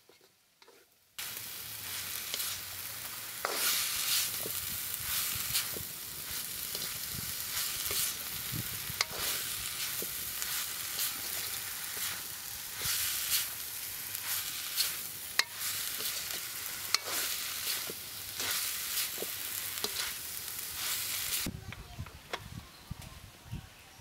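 Chopped vegetables sizzling as they fry in a metal wok, stirred with a metal spatula that clicks and scrapes against the pan. The sizzle starts suddenly about a second in and stops near the end.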